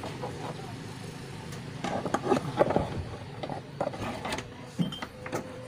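A few irregular clicks and light knocks of objects being handled, bunched about two to three seconds in, over a steady low background hum.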